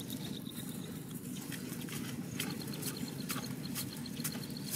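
Cast net being gathered in the hands, its mesh and lead-weighted chain giving light irregular clicks and rustles over a steady low rumble. A faint high chirp pulses evenly throughout.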